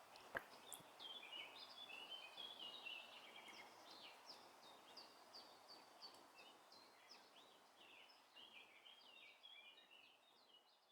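Faint chirping of several small birds, many short high notes in quick succession, fading out toward the end.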